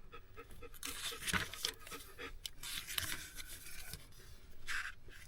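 Faint handling noises: light rustling and small ticks, with a slightly louder rustle near the end.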